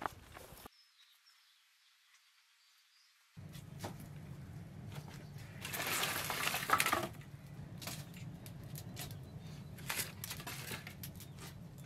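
Wood fire burning in a clay pit oven, from about three seconds in: a steady low rumble with scattered crackles and pops, and a louder rushing flare of noise around the middle.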